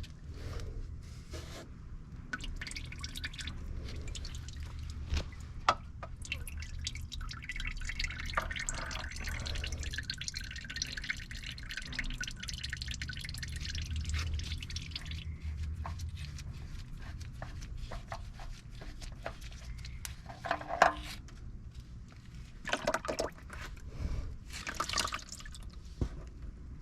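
Old engine oil trickling and dripping as it drains, a steady trickle for the first half that then thins to scattered drips, with a few handling knocks near the end.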